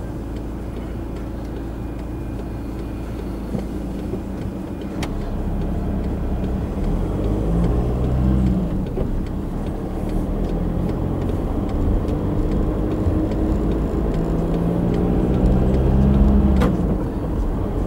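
Diesel car engine heard from inside the cabin, idling at a standstill, then pulling away and accelerating. Its pitch climbs twice with a gear change in between, and it grows louder as it goes.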